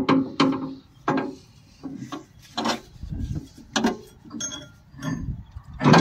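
Irregular metal clunks and clicks, roughly two a second, from the toothed drive sprocket and gears of a combine harvester's cutter gearbox being worked by hand.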